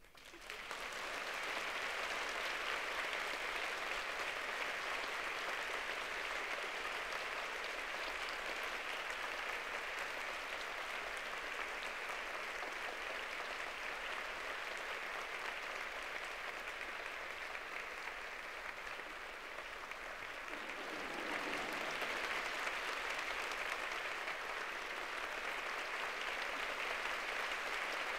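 Audience applauding. The clapping starts suddenly, runs steadily, and swells again about three-quarters of the way through.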